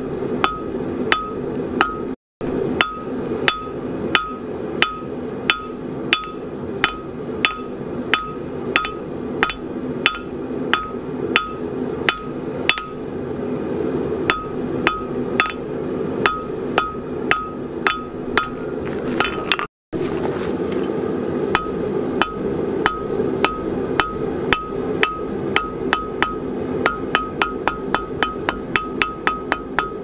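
Hand hammer striking a red-hot steel bar on an anvil, about two blows a second and quickening near the end, each blow ringing with a clear tone, while the end of the bar is drawn out to a point. A steady low rush runs underneath, and the sound cuts out briefly twice.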